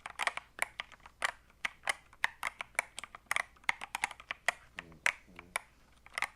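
Keys of a Cool Killer CK75 mechanical keyboard being pressed: an uneven run of sharp clacks, several a second.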